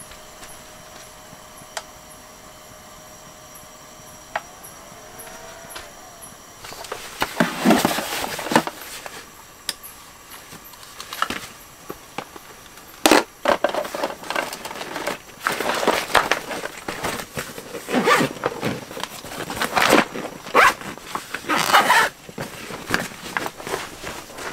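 A few seconds of quiet steady background, then from about seven seconds in repeated rustling, scraping and knocks as a portable projector and its cables are handled and packed into a padded fabric carry bag.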